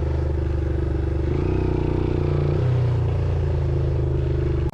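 Motorcycle engine running, revving up about a second and a half in and dropping back after a second or so, then cut off suddenly at the end.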